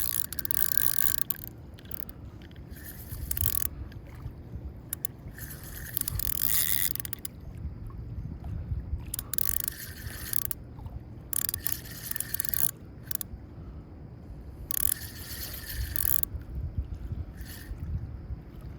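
Fishing reel whirring in repeated bursts of about a second each while a hooked bass is fought and reeled in, over a steady low rumble of moving water.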